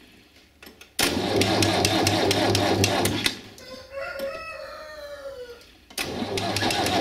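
UTB DT445 tractor's diesel engine idling with a steady clatter. It cuts in about a second in, fades out around the middle and returns abruptly near the end. In the lull a rooster crows once, a long call that falls in pitch at the end.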